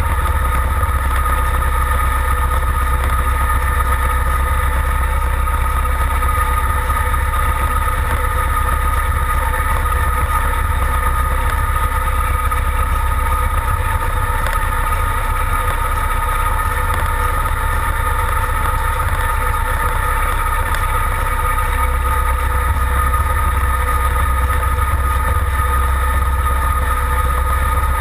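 Modified pulling tractor's engine idling steadily, with no revving.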